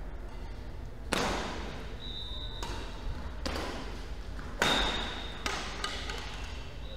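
Badminton rally: about five sharp racket strikes on the shuttlecock, a second or so apart, the loudest about a second in and at about four and a half seconds, with short high squeaks of shoes on the court floor in between.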